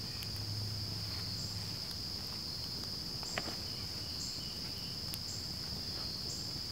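Insects trilling in a steady, high, unbroken drone, with a single faint crackle from the campfire about three and a half seconds in.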